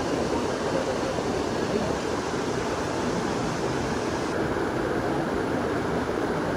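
A waterfall cascade pouring into a rock pool: a steady rush of water.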